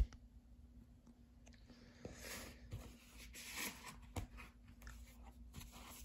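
Faint handling noise: rustling and a few sharp clicks, as a hand handles a DVD case and the camera by a portable DVD player, over a faint steady hum.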